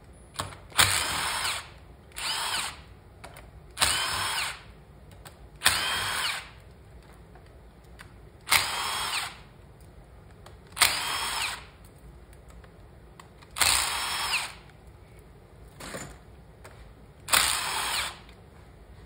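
A cordless drill with a driver bit spins out the side cover bolts of a small kart engine one after another. There are about nine short runs of the motor whine, each under a second, with pauses of a second or two between as the bit is moved to the next bolt.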